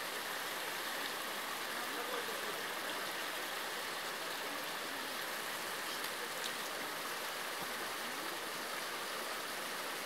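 Small snow-fed mountain stream flowing over rocks: a steady, even rushing of water.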